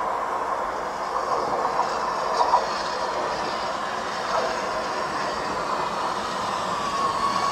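Oslo metro MX3000 train approaching along the platform, a steady rumble of wheels on rail with a high steady tone. A few clicks of wheels over the rails come about two and a half and four and a half seconds in.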